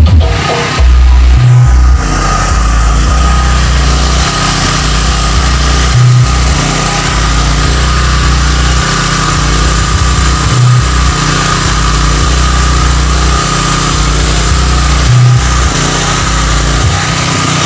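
Sound-check track played loud through a sound system with Tosunra CA20 subwoofers: long, deep sub-bass notes that step between pitches, with a short punchy bass hit about every four and a half seconds over a steady hiss.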